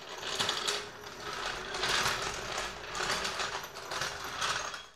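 Low-profile floor jack being rolled across a concrete floor, a steady rattling clatter from its wheels and frame that stops near the end.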